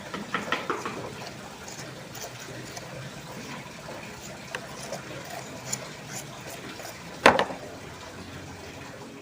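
Hand work on wet cement mortar: light scraping and small clicks, with one sharp knock about seven seconds in.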